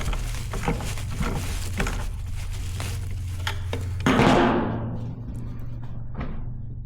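Small bolts, washers and magnets being handled, with light clicks and taps, then one loud clunk about four seconds in that rings out briefly. A steady low hum runs underneath.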